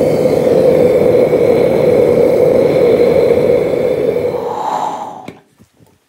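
Propane burner of a small Devil-Forge 2 kg gas melting furnace running with a steady, loud rushing noise. The noise shifts briefly higher about four and a half seconds in, then cuts off suddenly about five seconds in, leaving a few faint clicks.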